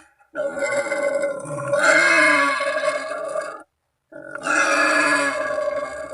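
Wild boar calling: two long, loud pitched calls about three seconds each, with a short silent break between them, sounding like one boar calling to others.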